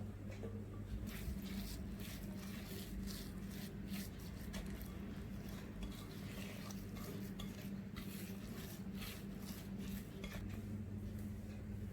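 A utensil stirring and scraping cookie dough in a mixing bowl, with frequent irregular clinks and scrapes against the bowl, over a steady low hum.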